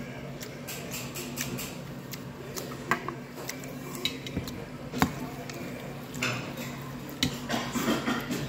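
Metal chopsticks clicking against a stainless steel bowl and ceramic plate while eating, with two sharper clinks about three and five seconds in, over a steady low hum.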